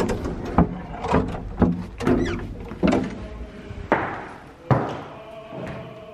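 Footsteps of hard-soled ankle boots on a wooden parquet floor: a run of sharp taps about every half second, stopping near the end.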